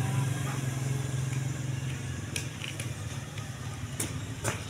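A vehicle engine running steadily with a low hum that eases off after about two seconds, with a few sharp clicks near the end.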